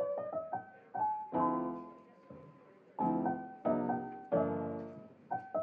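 Background piano music: short single notes and four chords that ring and fade away.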